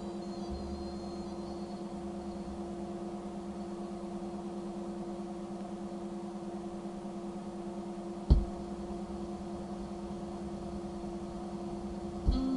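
A steady hum of several held tones with a faint rumble beneath, broken by one sharp thump about eight seconds in and a smaller knock near the end.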